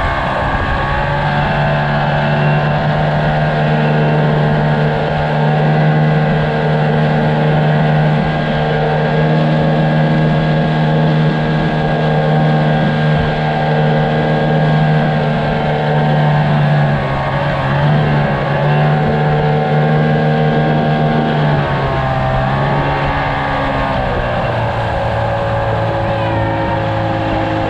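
Mariner outboard motor on a soft inflatable boat running at speed, steady, with its pitch briefly wavering and dipping twice in the later part.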